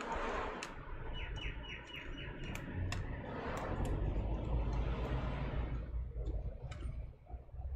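Fingers and fingernails working a small cable connector on a laptop motherboard: scattered light clicks with rubbing and handling noise. About a second in, a bird gives a short trill of six quick chirps.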